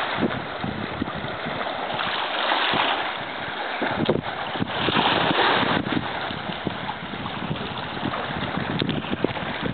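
Wind buffeting the microphone over small lake waves lapping, gusting louder twice, with a few short splashes and knocks from a kayak paddle.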